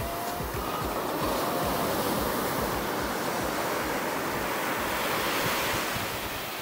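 Ocean surf breaking and washing up a sandy beach, a steady rushing.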